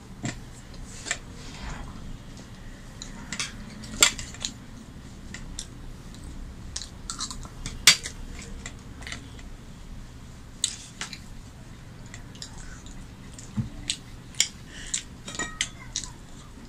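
Scattered sharp clinks and taps of stainless-steel bowls, plates and a spoon as food is scooped and handled during a meal, the loudest about four and eight seconds in.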